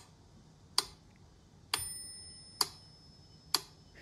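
Mechanical metronome ticking steadily, about one sharp tick a second. After one tick, a little under two seconds in, a faint high ringing tone lingers.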